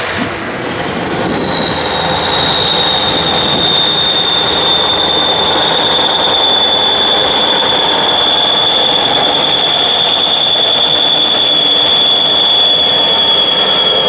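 Kirovets K-700-series tractor's turbocharged diesel engine running, its turbocharger whistling in a loud high steady tone over the engine noise. The whistle dips slightly in pitch about a second in, then holds.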